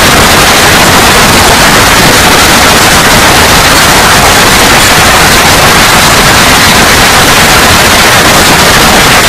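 Heavy hail pelting a swimming pool and the paving around it: a very loud, unbroken hiss of countless impacts.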